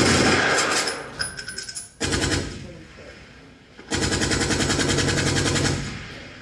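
Recorded machine-gun fire played as a battle sound effect, in bursts of rapid shots. A burst fades about a second in, a short one comes at about two seconds, and after a gap a longer burst of about two seconds follows.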